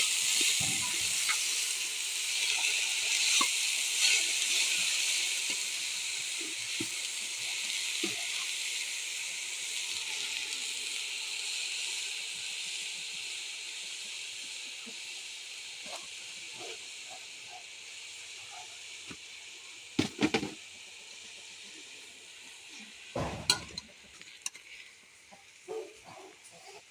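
Food sizzling as it fries in hot oil in a pan, the sizzle slowly dying down; two sharp knocks come late on.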